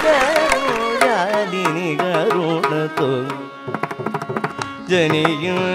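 Carnatic classical music: a melody bending and sliding between notes over drum strokes. It thins out for about a second past the middle.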